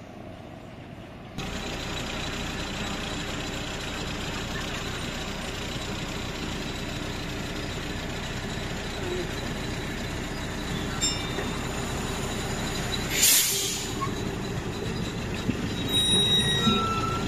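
Land train running along the road, its engine and road noise heard from on board; the noise steps up suddenly about a second and a half in and stays steady. A short hiss comes about two-thirds of the way through.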